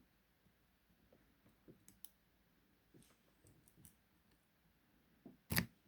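Faint clicks and light scraping of a short hook and tension wrench picking the pins of a laminated padlock, with one much louder sharp click near the end.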